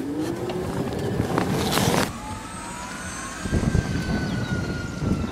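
Polaris Ranger EV electric utility vehicle pulling away over grass: the electric drive motor's whine rises in pitch as it gathers speed, then levels off and sags slightly, over a low rumble of tyres and drivetrain. A short rush of noise comes about two seconds in.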